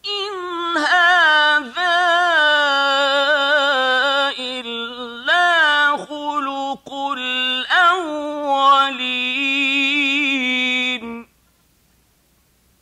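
A male Qur'an reciter chanting one long melodic phrase of recitation in the ornamented mujawwad style. His single high voice holds and bends notes with wavering trills and breaks off near the end.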